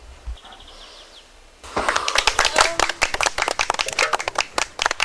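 A short, faint bird trill, then from about two seconds in a group of people clapping briskly, with voices mixed in.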